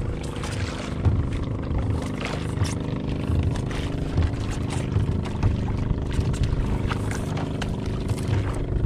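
Motorised outrigger boat's engine running steadily at a constant speed, with a few short knocks and splashes over it.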